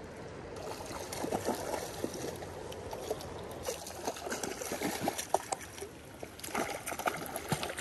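Steady rush of river current with scattered splashes and short clicks as a hooked trout thrashes at the surface close to the bank.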